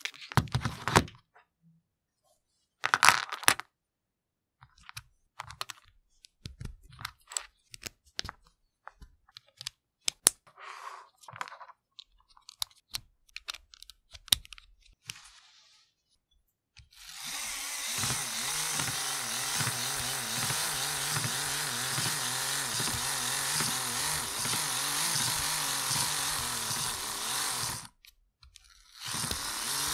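Hard plastic LEGO parts clicking and knocking as they are handled and fitted together. Then, about 17 seconds in, a LEGO motor whirs steadily as it is hand-cranked to work as a generator; it stops for about a second near the end and starts again.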